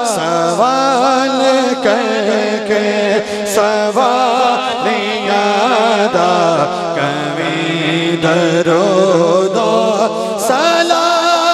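Male voices chanting a devotional salam into microphones: an ornamented, wavering lead line over a steady held lower note that drops in pitch partway through.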